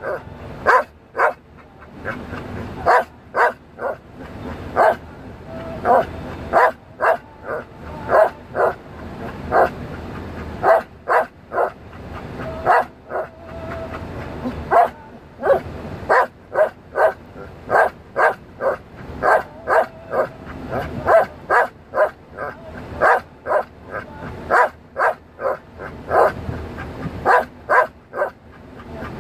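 Belgian Malinois singing: a long string of short, yipping barks, about one or two a second, with a few brief held notes.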